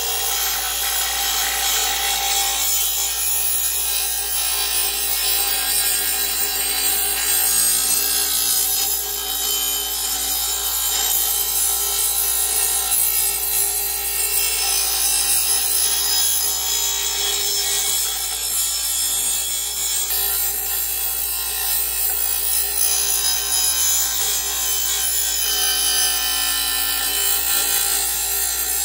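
Porter-Cable bench grinder's abrasive wheel grinding the edge of a steel lawn mower blade: a steady, harsh hiss of metal on the stone over the even hum of the motor, unbroken throughout. The blade is badly damaged and is being ground back to a sharp edge.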